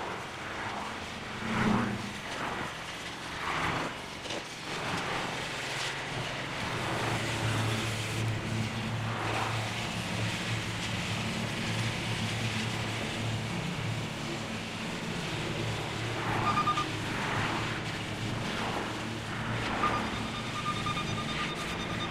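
Steady engine hum of heavy machinery running, with noise over it and several irregular louder knocks and clanks.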